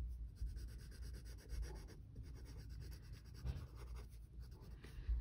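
Pencil drawing on sketchbook paper: faint, irregular strokes of graphite rubbing across the page, over a low background rumble.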